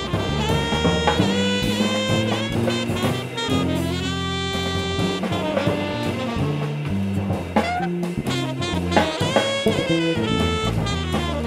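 Jazz trio playing live: saxophone carrying the melody with several long held notes over electric bass and a drum kit played with sticks.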